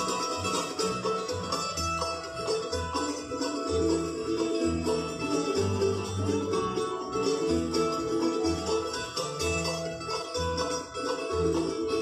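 Live bluegrass band playing: banjo, mandolin, acoustic guitars and resonator guitar picking over upright bass notes that keep a steady beat of about two a second.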